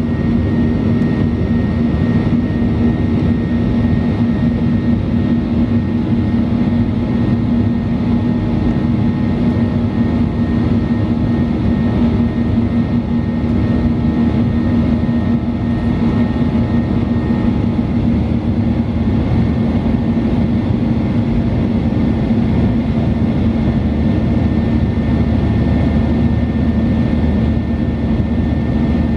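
Cabin noise inside a Boeing 737-800 climbing out after takeoff: the steady drone and rush of its CFM56-7B turbofan engines, loud and unbroken, with a strong low hum.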